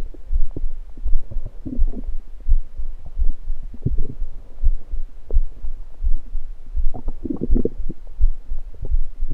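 A human stomach heard close up through the belly while it digests a carbonated soda: a steady low pulse thumps about twice a second, and short gurgles come and go over it, with a bigger run of gurgling about seven seconds in.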